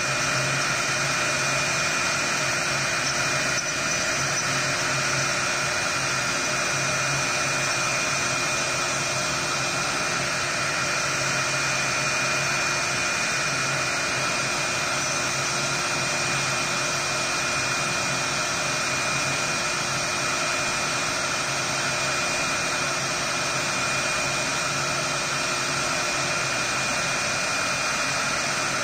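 Avid CNC router's spindle running with a steady high whine while its V-bit cuts pockets into a wooden block, a constant hiss of cutting under the tone.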